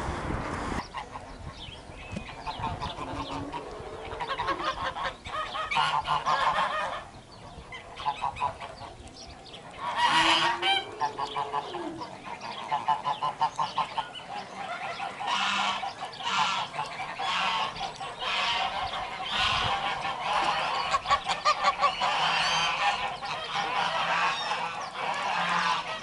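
A flock of domestic geese honking, many calls overlapping and repeating throughout.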